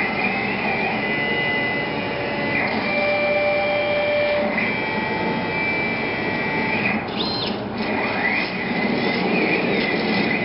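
Drive motors of a belt-driven CNC plasma table gantry whining as it runs a test pattern under Mach control, with no torch firing. Several steady tones jump to a new pitch every second or two as each move starts and stops, with rising and falling sweeps in the last few seconds as it moves through curves.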